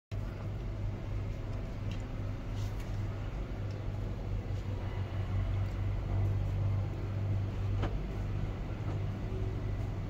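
A steady low hum is the loudest sound. Over it come a few faint, short chirps from a flock of perched lovebirds, about two seconds in and again near eight seconds.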